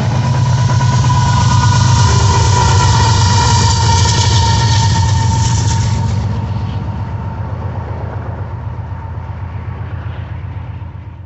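Two BNSF diesel locomotives at the tail of a double-stack intermodal train passing close by: a steady low engine drone with a high whine over it, loudest in the first half, then fading as they move away.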